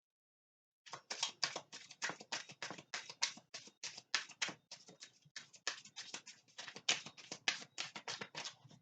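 A deck of oracle cards being shuffled by hand: a quick, uneven run of short flicks and slaps of card on card, about four or five a second, starting about a second in.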